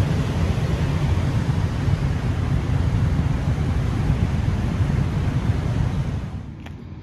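Muddy floodwater rushing through rapids over rocks, a steady rushing noise with a low rumble of wind on the microphone. It drops away sharply about six seconds in.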